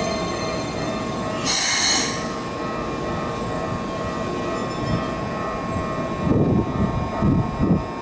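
Keikyu 1000-series electric train pulling into the platform and braking to a stop, with a steady whine of its running gear and brakes. A short, loud hiss comes about one and a half seconds in, and a few low rumbles come near the end.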